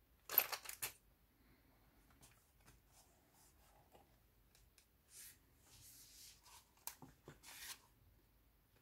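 Paper pages of a handmade junk journal rustling as they are handled and turned, loudest in a short burst about half a second in, with softer rustles later as a page is turned and a card is slid from a pocket.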